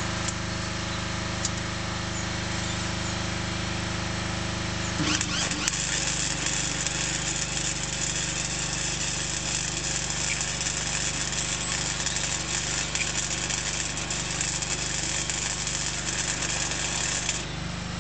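Welding crackle and hiss that starts sharply about five seconds in and stops about a second before the end, over an engine running steadily.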